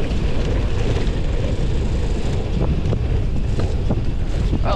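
Wind rushing over the microphone of a mountain bike's point-of-view camera while riding a dirt trail, with the rumble and rattle of the bike and a few sharp knocks.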